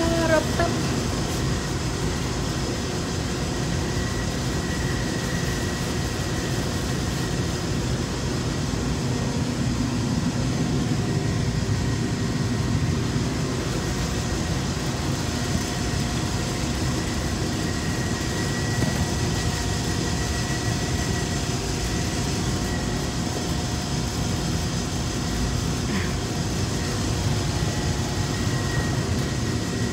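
Rooftop HVAC machinery running: a steady low mechanical hum with a few faint, unchanging tones above it.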